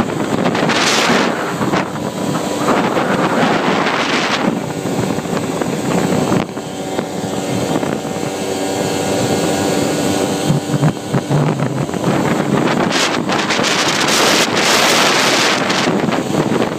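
ATV engine running steadily while riding along, with wind buffeting the microphone in strong gusts.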